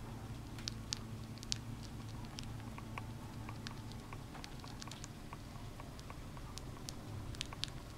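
A baby Syrian hamster nibbling and chewing food crumbs, making irregular tiny clicks and ticks, several a second, over a steady low hum.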